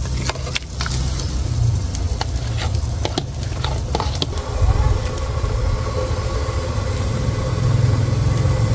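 A pot of boiling water over a wood fire with small fish just added. A metal ladle clicks against the pot several times in the first half while the fish are stirred, over a steady low rumble.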